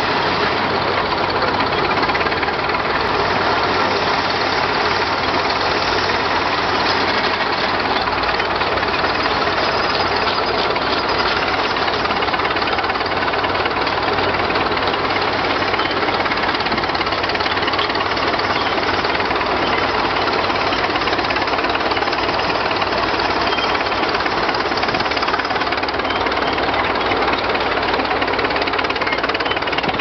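A working steam shovel: a steady, loud hiss of escaping steam with a mechanical rattle of its engines as it digs.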